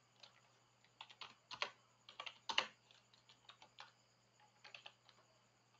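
Computer keyboard keys clicking as a phrase is typed slowly, the keystrokes irregular and coming in short clusters with pauses between them, the loudest about two and a half seconds in.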